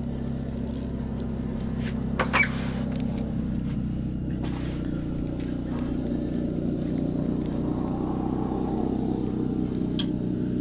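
A steady low mechanical hum, like a motor running, with a brief sharp knock about two seconds in.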